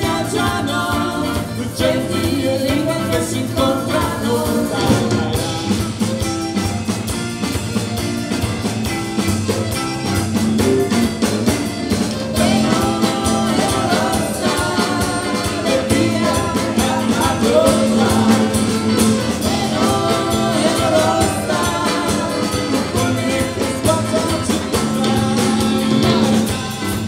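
Live ethno-rock band playing: a man and a woman singing over electric bass, electric guitar and drum kit.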